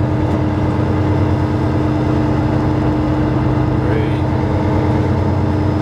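Fishing boat's diesel engine running steadily: a constant low drone with a steady humming tone over it.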